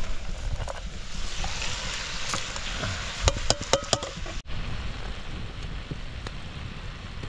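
Food sizzling in a pot over a cooking fire, with a few sharp clicks of a utensil against the pot a little past the middle, and wind rumbling on the microphone. The sizzle drops off after a sudden break about halfway through.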